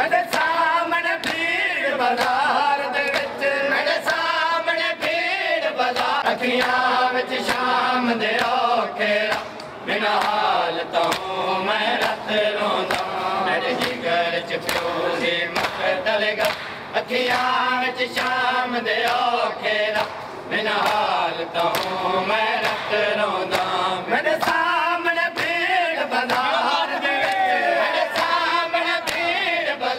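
Men chanting a Shia mourning lament (nauha) in phrases, together with matam: a steady rhythm of hands slapping their chests.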